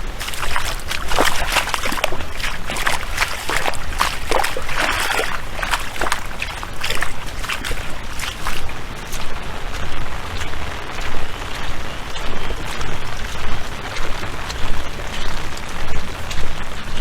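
Rain and splashing water, with many sharp close drip hits in the first half that thin out later, over a steady low rumble.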